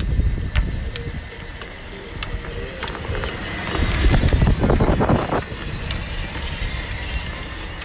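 Pink Barbie Cadillac Escalade EXT battery-powered ride-on toy car driving on asphalt: its electric drive motors whine faintly over the low rumble of the wheels rolling on the road. A louder rush of noise comes about four to five seconds in.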